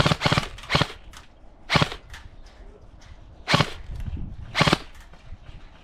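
Airsoft guns firing single shots: about six sharp cracks at irregular spacing, with fainter snaps between them.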